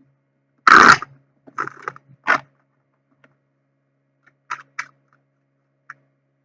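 Tarot cards being shuffled and handled: a loud papery shuffle lasting under half a second, about a second in, then a few short card clicks and taps.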